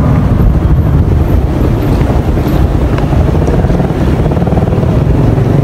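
Wind buffeting the phone's microphone outdoors: a loud, steady low rumble with no clear engine or voice above it.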